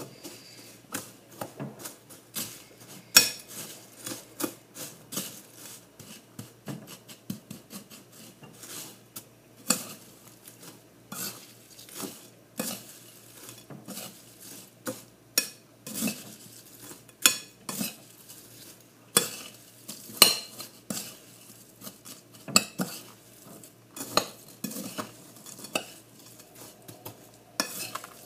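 A spoon stirring a pie topping mixture in a bowl, clinking and knocking against the sides in irregular strokes, a few each second.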